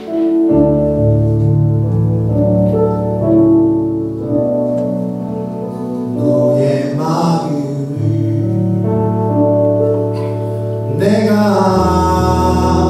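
A man singing a Korean worship song into a microphone over a backing of held keyboard chords and bass. His voice comes in briefly about seven seconds in and again, louder, near the end; in between the backing chords carry on alone.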